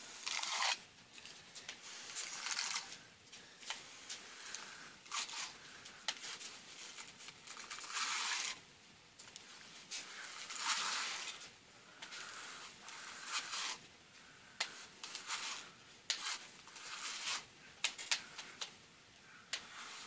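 A hairbrush drawn through long hair close to the microphone: repeated brushing strokes, a swish every second or two.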